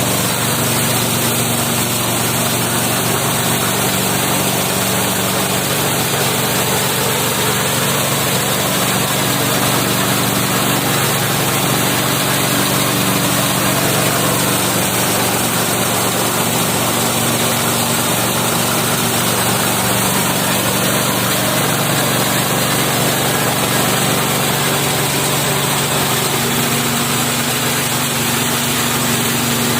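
KD-580S rice milling machine running steadily, driven by its 7.5 HP MGX-210 engine: a constant engine drone under a dense, even hiss from the mill.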